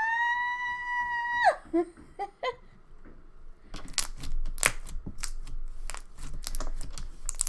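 A high-pitched, held squeal of delight for about a second and a half, with a few short vocal sounds after it. About halfway through, thick clear slime starts being pressed and squished between the fingers, giving rapid clicking and crackling snaps.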